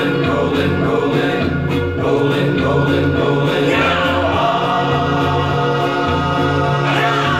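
Music with singing and a steady, prominent bass line playing through SVS Prime tower speakers in the room.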